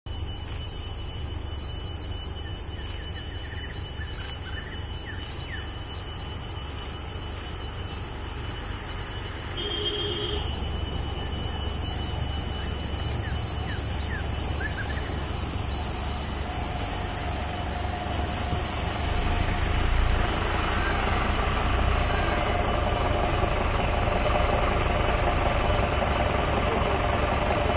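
A motor vehicle's engine idling steadily, a low rumble that grows louder about a third of the way in and again past the middle, under a steady high-pitched hiss.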